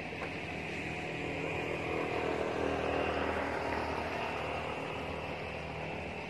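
A vehicle engine running past, its drone swelling about two to three seconds in and easing off again, over a steady high hiss.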